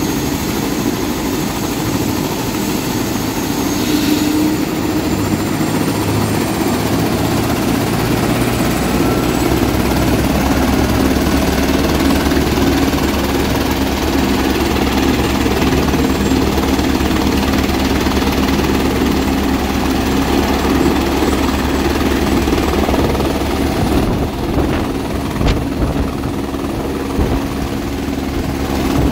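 Airbus H125 helicopter running on the ground, main rotor turning, ahead of take-off: a high turbine whine that steps up in pitch about four seconds in, over the rotor's steady beat.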